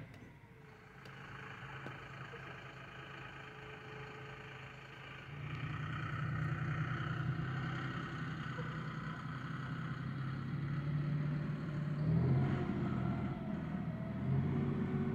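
Loader tractor engine running steadily, throttled up about five seconds in so it gets louder, with another brief rise around twelve seconds.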